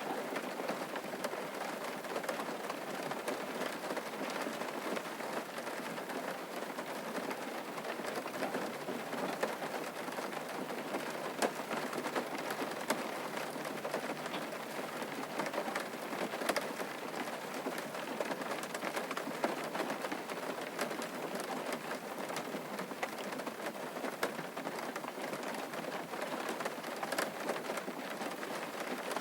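Steady rain falling on a surface, an even hiss dotted with fine raindrop ticks.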